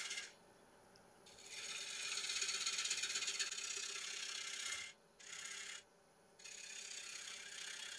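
A 5/8 bowl gouge shear-scraping a spinning yew bowl on a wood lathe, taking fine shavings. It comes as a hissing scrape in four passes, the longest more than three seconds, with short pauses between, over the lathe's steady low hum.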